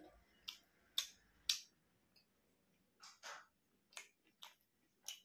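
Mouth sounds of someone chewing a steamed vegetable momo: a series of short, sharp wet clicks and smacks, three strong ones in the first second and a half, then several softer ones after a short pause.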